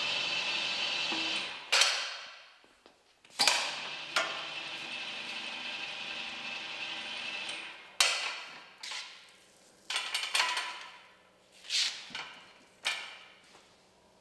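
Mobile column lift's power unit running steadily, stopping and starting, with a series of loud metallic clanks that ring out as the lift and axle stand are worked under the bus's nearside front wheel.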